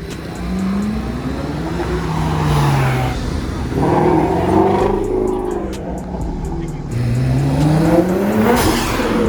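Performance car engines revving and accelerating, their pitch climbing and dropping several times; the strongest climb comes near the end.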